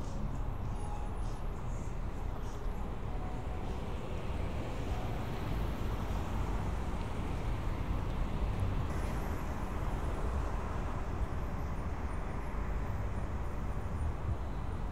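City street traffic: a steady low rumble of cars and other vehicles, swelling slightly as one passes about halfway through.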